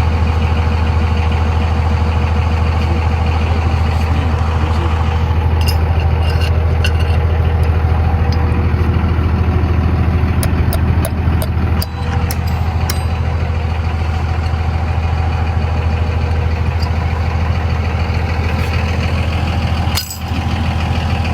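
A vehicle engine running steadily at idle, with a deep, even low hum and no change in speed.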